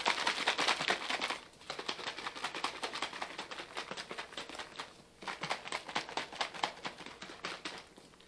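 Heavy whipping cream and sugar-free Jell-O sloshing inside a small plastic container shaken rapidly by hand, with two short breaks. The liquid still splashes audibly, meaning the cream has not yet thickened.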